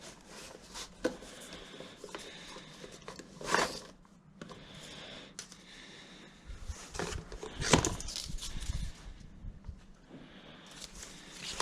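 Handling noises as ignition leads are picked up and moved about: light scattered clicks, scrapes and rustles, with a couple of louder knocks partway through.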